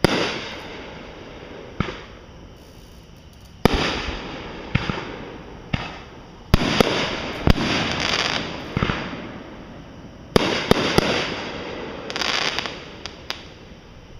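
Fireworks going off: a string of sharp bangs, coming in clusters, with several close together in the middle and again near the end. Each bang is followed by a noisy tail that fades over a second or so.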